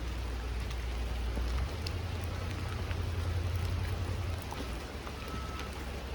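Steady rain falling, an even hiss with scattered drops ticking, under a low rumble.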